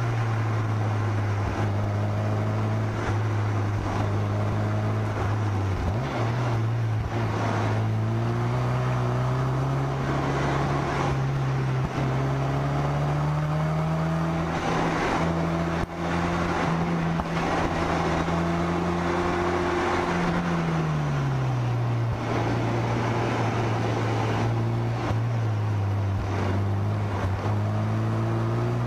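Car engine running on the move, heard from the bonnet. Its pitch climbs gradually about a third of the way in, holds, drops fairly quickly about two-thirds through, then rises again near the end, over a steady rushing hiss.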